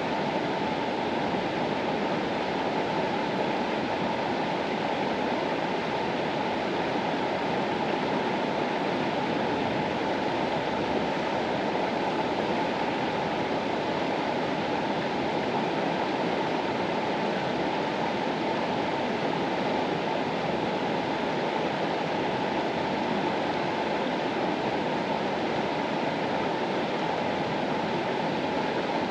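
River water flowing: a steady, unbroken rushing sound, fullest in its lower and middle range.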